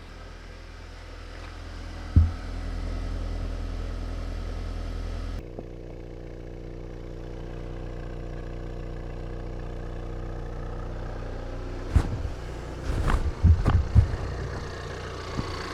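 Ford Bronco Sport's 2.0-litre EcoBoost turbo four-cylinder idling steadily, shortly after a start. A single sharp thump about two seconds in, and a run of sharp knocks and thumps near the end.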